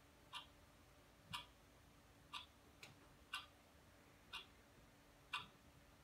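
Faint, steady ticking clock, one tick about every second.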